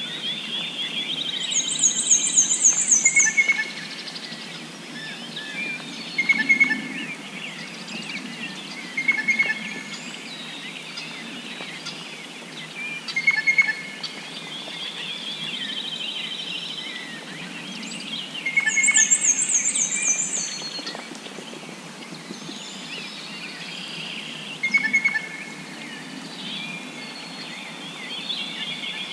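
Several songbirds singing together: a high, fast trill heard twice, a lower buzzy trilled phrase, and short chirps repeated every few seconds over a soft background hiss.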